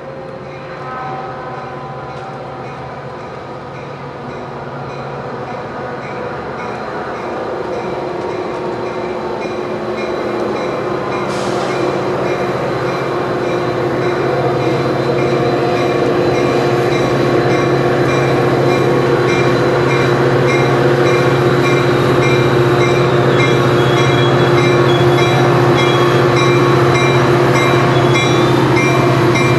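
Diesel locomotive of a Metrolink commuter train running with a steady engine tone and rail rumble, growing steadily louder as the train approaches.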